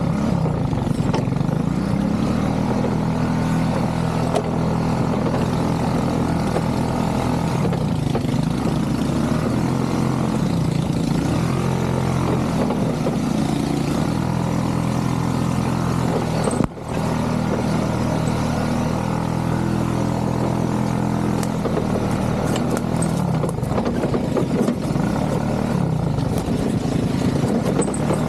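ATV engine running while being ridden, its pitch rising and falling repeatedly with the throttle. All sound drops out for a moment about two-thirds of the way through.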